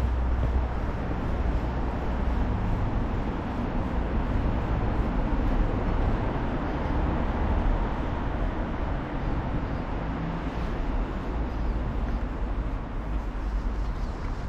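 Steady city street ambience: a low rumble of passing road traffic.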